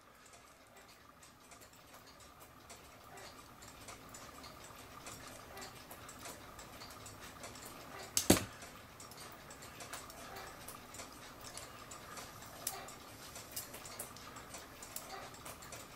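Faint ticking and small metal clicks from a cuckoo clock movement being worked on by hand, with one sharper click about eight seconds in.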